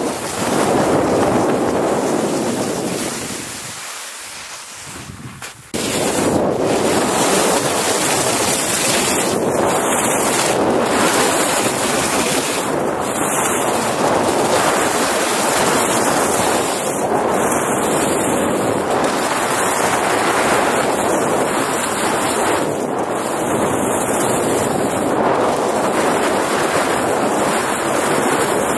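Rushing noise of wind on the microphone and skis sliding fast over snow. The noise fades for a few seconds, then comes back suddenly about six seconds in.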